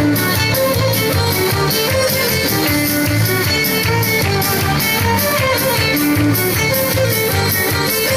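Instrumental music with guitar and violin over a steady beat.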